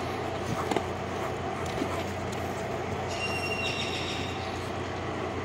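Steady background rumble and hiss with a low hum, a few faint clicks, and a brief thin high whistling tone about three seconds in.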